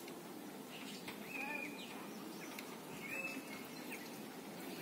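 Faint outdoor background hum with two short, high bird chirps, about a second and a half apart.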